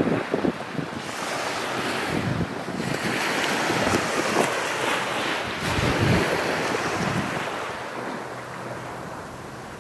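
Small waves washing up onto a sandy beach. The surf swells in the middle and eases off near the end, with wind buffeting the microphone.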